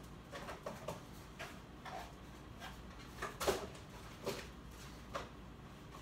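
Someone handling things in a kitchen: a scattered series of light knocks and clicks, like drawers, cupboard doors and items being moved, with the sharpest knock about three and a half seconds in.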